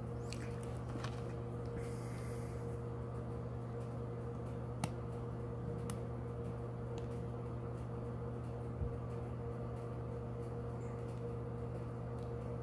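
A steady low electrical hum with a fainter, higher constant tone above it, broken by a few faint short clicks.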